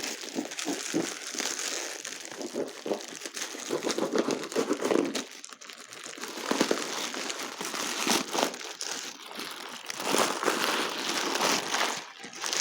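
Packing paper being crumpled and pulled away from a wrapped crystal sphere: a continuous, irregular crinkling and rustling that eases briefly a little before the middle and again near the end.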